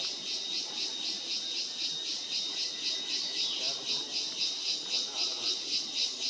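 A high-pitched forest insect chorus pulsing evenly about four times a second over a thin steady whine.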